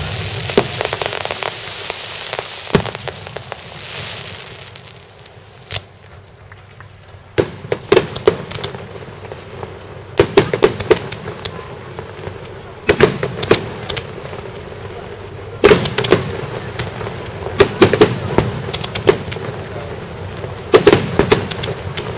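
Fireworks finale: aerial shells bursting in quick clusters of sharp bangs, starting about a third of the way in and recurring every two to three seconds. Before them, an even hiss fades away over the first few seconds.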